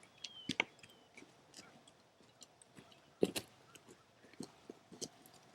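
Faint scattered clicks and rustling, with a sharper click about three seconds in.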